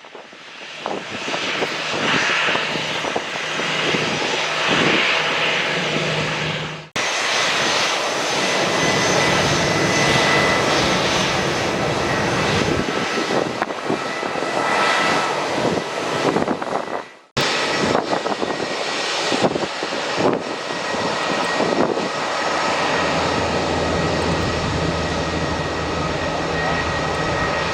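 Airbus A320-214's CFM56-5B turbofan engines running at high power during takeoff: a loud, steady jet rush with a thin fan whine over it. The sound cuts out very briefly twice.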